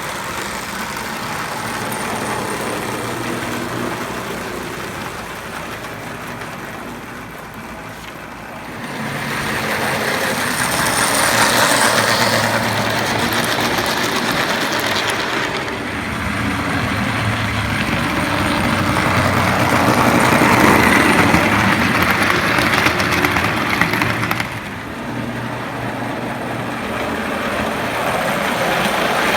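Marx O-scale tinplate diesel train, two engines in tandem, running on its track: a steady electric motor whir with wheel and rail clatter. It swells twice as the train comes close and fades as it moves away.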